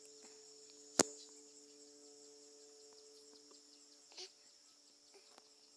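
Insects trilling steadily in high, thin tones, with one sharp click about a second in.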